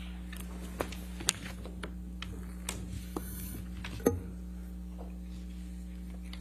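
Paper being handled near a witness-stand microphone: a handful of short sharp clicks and rustles, the loudest about a second in and about four seconds in, over a steady electrical hum.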